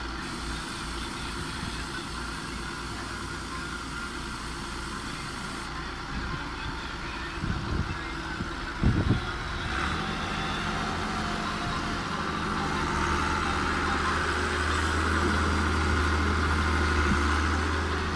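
Diesel engines running: a wheeled excavator working, joined from about ten seconds in by a Massey Ferguson tractor's steady low engine hum as it pulls up alongside, growing a little louder after that. A few heavy thumps come about eight to nine seconds in.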